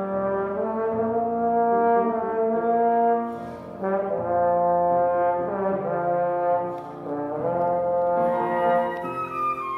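Slow instrumental music of sustained, held chords moving in phrases, with short breaks about three and a half and seven seconds in.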